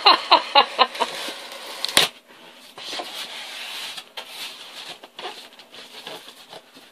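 Styrofoam packing squeaking and scraping as it is worked off a new sewing machine: a quick run of about six sharp squeaks at the start, a single knock about two seconds in, then uneven rubbing and creaking.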